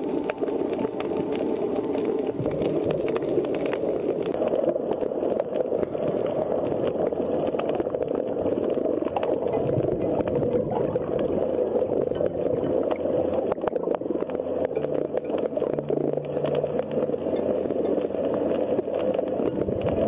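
Underwater ambience picked up by the camera in the water over a coral reef: a steady rushing hiss with a dense crackle of fine clicks throughout.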